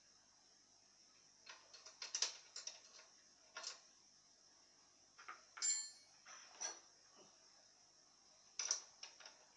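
Small metal clicks and clinks in short clusters from hand work on a scooter engine, tools and parts knocking together. One clink about six seconds in rings briefly.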